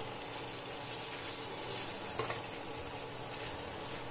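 Chicken curry sizzling in a frying pan as freshly ground garam masala paste is stirred through it, with a single light knock about two seconds in.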